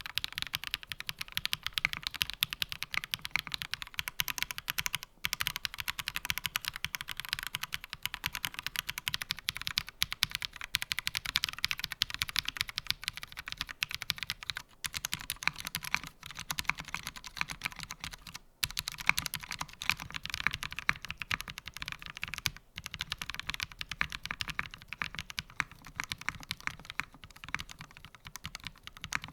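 Fast, continuous typing on a mechanical keyboard, the Angry Miao AM Compact Touch with its internal foam removed: a dense stream of key clacks, with a few brief pauses.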